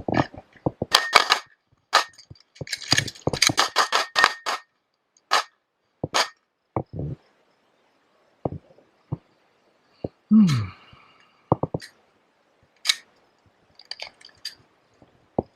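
A series of sharp clicks and clacks, crowded together in the first few seconds and scattered after that, with one short sound falling in pitch about ten seconds in.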